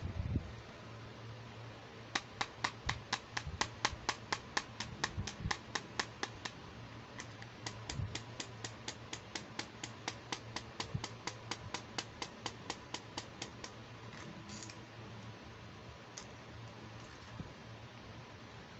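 Fingernails tapping steadily on a hard plastic toy makeup compact, about four taps a second for some twelve seconds. After that come a few softer clicks of the plastic case being handled.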